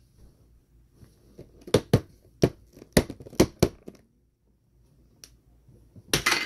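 A pink plastic surprise-toy ball is being forced open by hand. It gives a quick run of about seven sharp plastic clicks and knocks over two seconds, then a crackling rustle near the end.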